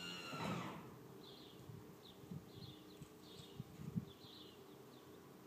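Piper Arrow II's electric hydraulic landing-gear pump winding down in pitch and stopping about half a second in, as the gear reaches the fully retracted position. After it, a small bird chirps repeatedly and a few faint knocks sound.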